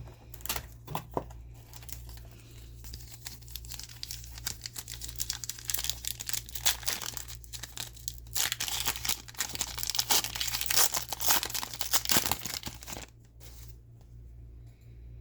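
Trading-card pack wrappers being torn open and crinkled by hand, a dense crackling that is heaviest in the middle and dies down about two seconds before the end.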